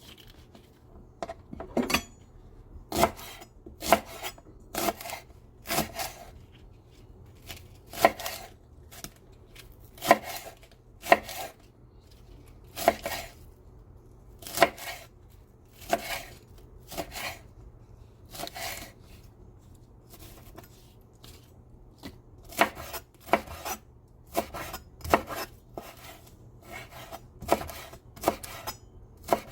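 Kitchen knife chopping on a cutting board: single sharp strikes at an uneven pace of about one a second, with a short pause about two-thirds of the way through.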